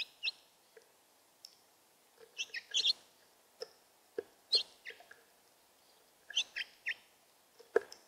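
House finches at a seed feeder: short high chirps in quick clusters of two to four notes, with a few sharp taps as a bird pecks at the tray.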